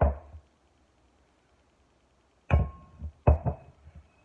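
Kitchenware knocking and clanking on a counter: one knock at the start, then two more a little under a second apart near the end, the later two with a brief metallic ring.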